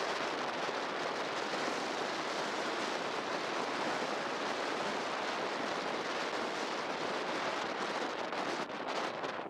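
Ocean surf breaking and washing in a steady, continuous rush. Near the end, wind buffets the microphone in uneven gusts.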